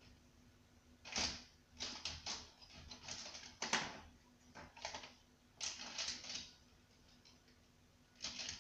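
Coloured pencils clattering against each other in a pencil case as a hand rummages through them, in several short bursts of rattling clicks.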